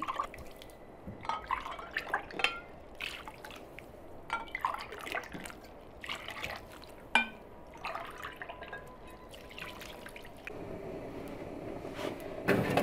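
Water poured from a drinking glass onto sugar-covered figs in an enamel basin, in repeated short pours that splash and dribble. Near the end comes a louder knock.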